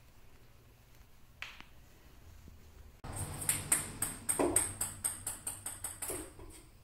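A ping pong ball bouncing on a hard floor: a quick run of sharp clicks that come closer and closer together, starting about halfway through.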